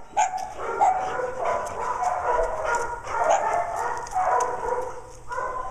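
Many kennelled dogs barking over one another, a continuous din of short overlapping barks.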